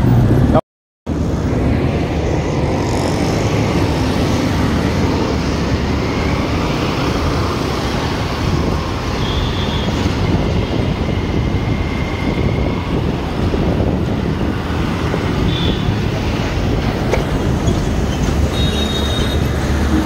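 Steady road and wind noise from riding on a motorcycle through city traffic, with the bike's engine underneath. The sound cuts out completely for a moment just under a second in.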